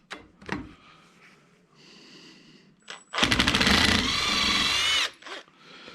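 A power tool runs for about two seconds, starting with a fast rattle and settling into a whine before stopping abruptly.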